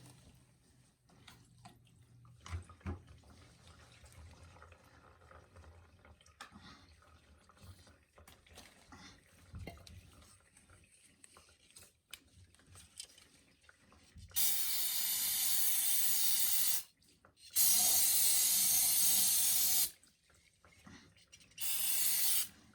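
Three bursts of hissing spray, the first two each about two to three seconds long and the last about a second, as the oil furnace's filter canister is cleaned; faint handling clicks and knocks come before them.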